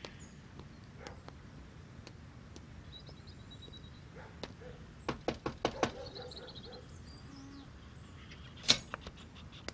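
Knocking on a house's front door: a quick run of about six sharp raps a little after five seconds in, then one louder sharp click near the end.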